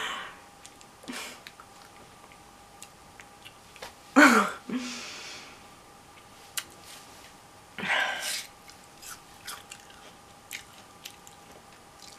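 A woman's two short breathy bursts of stifled laughter, about four seconds apart, with small lip and mouth clicks in between.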